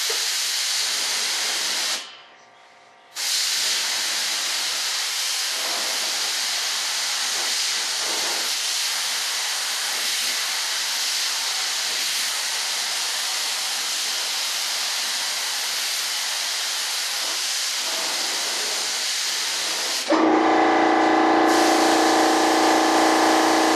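Compressed-air spray gun hissing steadily as it sprays primer, with a one-second break about two seconds in when the trigger is let go. About twenty seconds in, a louder steady motor hum with several held tones starts.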